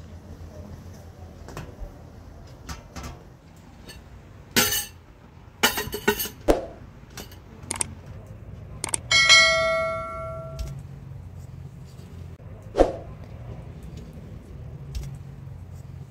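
Metal dishes and utensils knocking and clinking a number of times. About nine seconds in, one strike rings out like a bell for about a second and a half.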